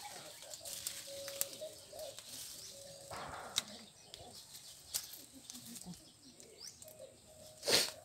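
Dry leaves and twigs rustling, with light clicks and knocks of bamboo tubes being picked up and handled, and one louder rustle near the end.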